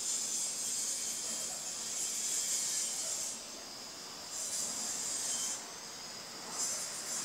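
High-pitched insect buzzing that comes in long spells and stops between them: one of about three seconds at the start, then two shorter ones near the middle and near the end.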